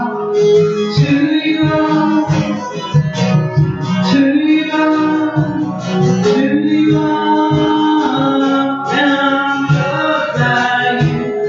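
Live worship music: an acoustic guitar strummed under singing, with a steady beat of conga drums.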